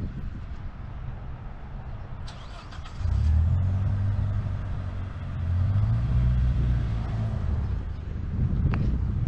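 Manual-transmission coupe's engine revving as the clutch is let out to pull the car forward from low speed: the engine note jumps up about three seconds in and swells again a few seconds later, with a sharp click near the end.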